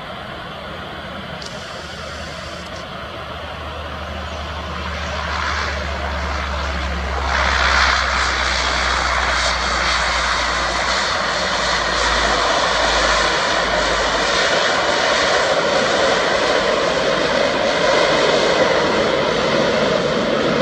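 Bombardier Dash 8-100 twin turboprop landing and rolling out, its engines and propellers running with a steady low hum. The sound grows from about four seconds in, swells suddenly about seven seconds in and stays loud through the rollout.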